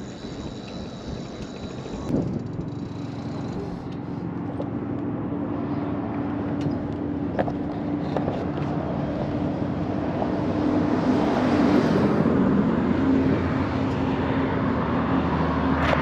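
Road traffic on the highway beside the walkway, a steady wash of noise that swells to its loudest about two-thirds of the way through, with a steady low hum under it.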